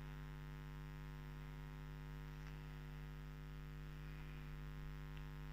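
Steady electrical mains hum, a low even drone with evenly spaced overtones, and two faint ticks about two and a half and five seconds in.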